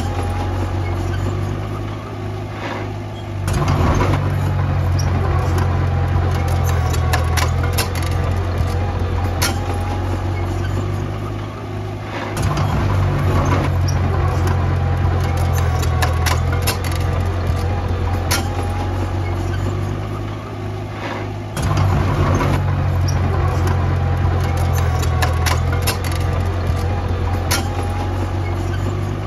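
Diesel engine of a small bulldozer working, the engine note rising and holding under load three times, about every nine seconds, as it pushes fill. Clanks and rattles from the machine run throughout.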